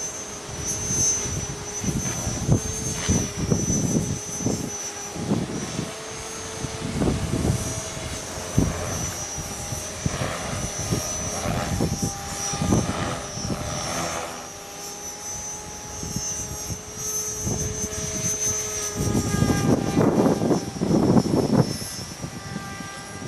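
Mikado Logo 400 electric RC helicopter in flight: a steady motor and rotor whine that shifts slightly in pitch. Strong wind buffets the microphone in repeated gusts, loudest near the end.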